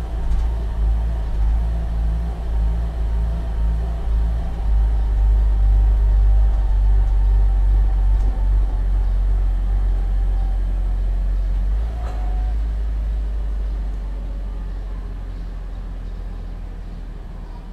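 Low engine rumble of a passing motor vehicle, loudest about six seconds in, then fading steadily away through the second half.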